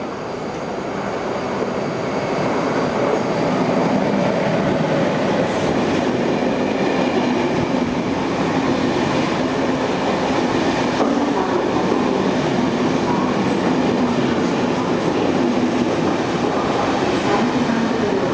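Intercity through train passing non-stop through a station at speed: the noise of its wheels on the rails builds over the first few seconds, then holds steady and loud as the carriages run past.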